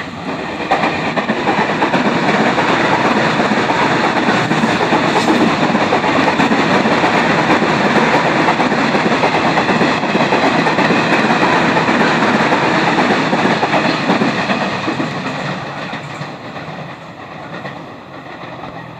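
A KRL commuter electric train passes close by at speed. The loud, steady noise of its wheels on the rails builds about a second in and fades away over the last few seconds as it moves off.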